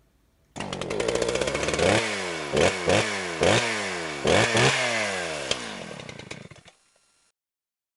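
Small gasoline engine revved in a series of throttle blips. Its pitch slides down after each blip, and it cuts off near the end.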